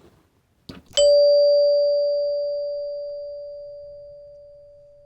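Heath Zenith two-note electric door chime, run on a 9V battery, striking its front tone bar once: a faint click, then a clean strike about a second in and one clear ding that rings on and slowly fades.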